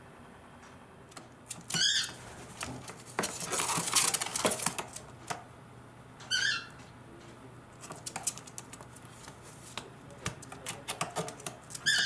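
Cockatiel giving two short, warbling chirps a few seconds apart, with a burst of rustling between them and a run of quick sharp taps and clicks near the end.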